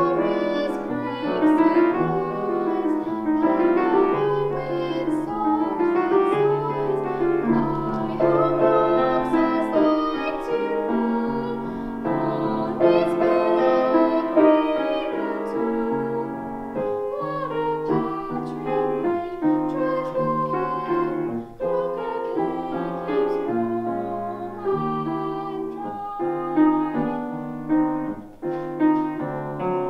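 A girl singing a classical art song with vibrato, accompanied on a Yamaha grand piano; near the end the voice stops and the piano plays on alone.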